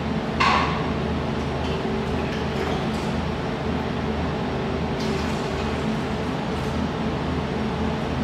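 Industrial water chiller for a laser welder running with a steady low hum. A single short clink comes about half a second in.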